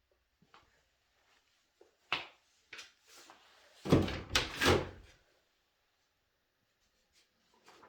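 A door or drawer being handled: a sharp click about two seconds in, a few light knocks, then a loud, short rattling clatter about four seconds in.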